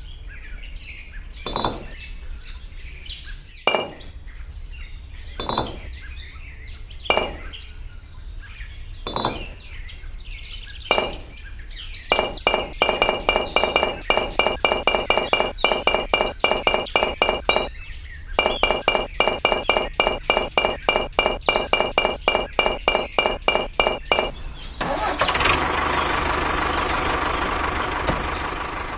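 A series of sharp clicks or knocks, one every second or two. About halfway through they turn into a fast, even tapping of about three or four a second over a steady high ringing tone, which breaks off once. Near the end comes a few seconds of even rushing noise.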